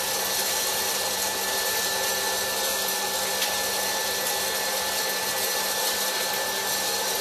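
Electric hot-air popcorn popper running: its blower gives a steady, even whooshing hum.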